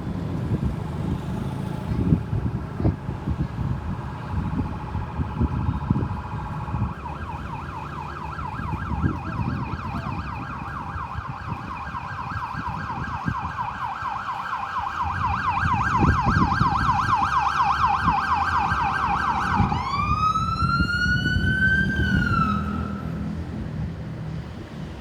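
Ambulance electronic siren: a steady tone at first, switching about seven seconds in to a fast yelp, then near the end one wail that sweeps up and drops away before it stops. Road traffic rumble underneath.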